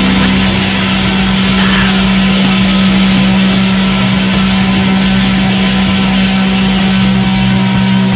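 Loud distorted rock music on the closing title card, one low note held steady.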